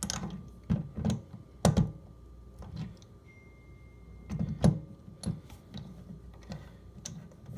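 Scattered sharp clicks and knocks of a metal cartridge puller tool being handled and fitted onto a faucet cartridge. The loudest knocks come about a second and a half in and again about four and a half seconds in.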